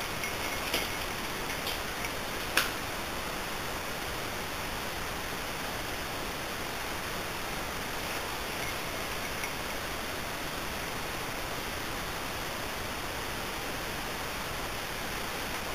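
A steady, even rushing hiss with no pitch. A few sharp clicks and snaps come in the first three seconds as a mountain unicycle rolls off down a leaf-covered dirt trail. The loudest click comes about two and a half seconds in.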